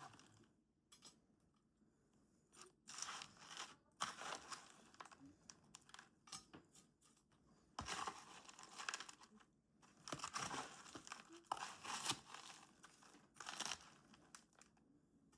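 Crushed barbecue potato chips crunching and rustling as chicken pieces are tossed and pressed into them to coat them, in several short bursts with pauses between.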